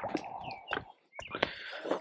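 Heavy breathing close to the microphone: two breathy swells about a second apart, with a few sharp clicks between them.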